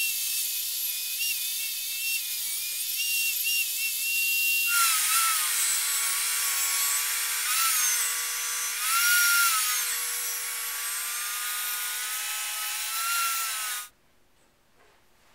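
Bosch table saw running and ripping a shallow biscuit groove down the middle of boards: a high motor whine over the hiss of the cut, dipping and wavering in pitch as the blade takes the load. About a third of the way in the sound changes abruptly to a lower whine, and near the end it stops abruptly.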